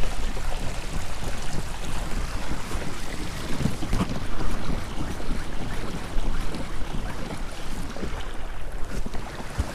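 Water rushing along a pedal kayak's hull as it moves at speed, with wind buffeting the microphone; it eases off a little near the end.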